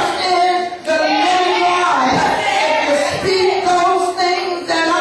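A woman's voice amplified through a handheld microphone, preaching in a half-sung, chant-like way with long held notes.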